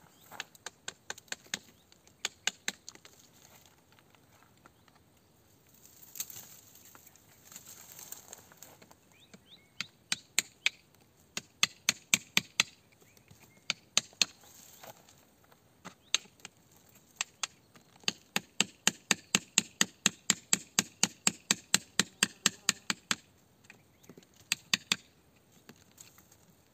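A hand tool striking and chipping at a rock face, digging out crystals: sharp, separate strikes in runs. There is a long fast run of about five strikes a second in the second half.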